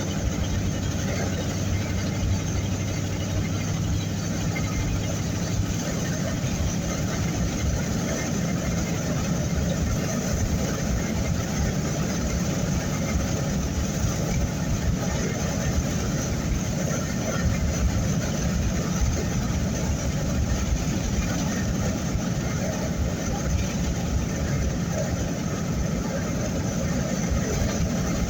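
Vehicle driving in strong wind, heard from inside the cabin: a steady engine hum, strongest in the first few seconds, under continuous road and wind noise with a low, gusty rumble.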